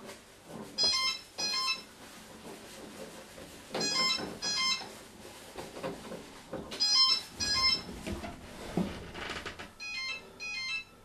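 Mobile phone ringing with a double-ring tone: two short electronic rings, then a pause, four times over about three seconds apart. A brief rustle comes between the third and fourth rings.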